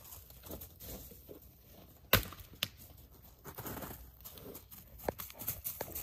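Scattered crunching steps in snow as a dog runs about, uneven and with no steady rhythm, with one sharp knock about two seconds in and quicker steps near the end.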